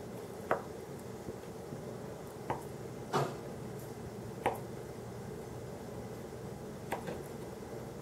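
Small knife cutting butter into cubes on a plastic cutting board: about six short, irregular taps as the blade meets the board, over a faint steady background hum.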